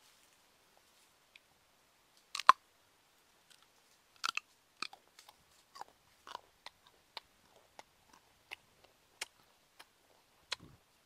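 A person biting into a crisp small green fruit dipped in chili paste and chewing it, heard close on a clip-on microphone: one sharp crunch of the bite about two and a half seconds in, then irregular crunching chews about every half second.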